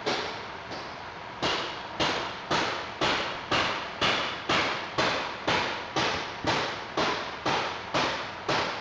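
Steady knocking, about two sharp strikes a second, each dying away quickly, stopping near the end.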